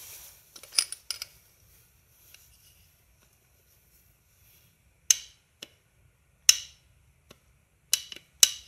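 About eight sharp metallic clicks and clinks, spaced irregularly, as a crankshaft is handled and rocked in an MBK 51 aluminium crankcase half. Its main bearing sits loose in a worn housing, which the mechanic takes to mean the crankcases are finished.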